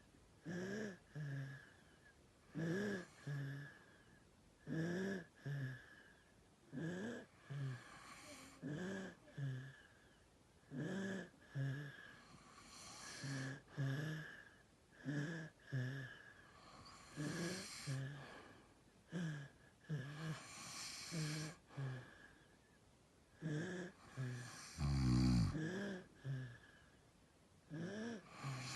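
A father and son snoring. Short snores come about once a second, roughly in pairs every two seconds, with one louder, deeper snore near the end.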